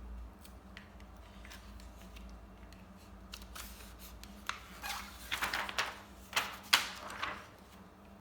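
Thin plastic protective film crinkling and crackling as it is peeled off a laptop replacement screen: quiet handling at first, then a burst of short crackles about halfway through, the loudest near the end.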